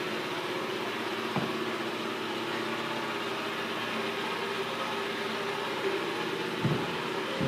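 Steady mechanical hum with a few steady tones in it, broken by a couple of soft knocks, one early and one near the end.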